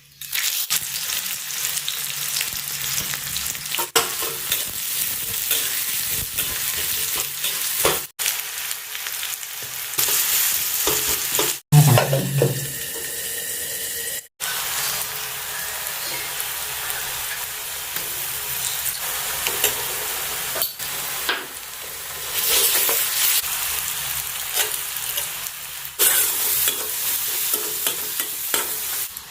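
Food sizzling as it fries in hot oil in a pan, with stirring, for the curry. The sizzle cuts off abruptly a few times, and there is a brief, louder low knock about twelve seconds in.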